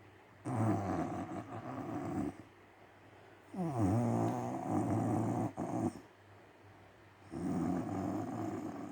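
A woman snoring in her sleep: three snores roughly three and a half seconds apart, each lasting about two seconds, with quiet breaths in between.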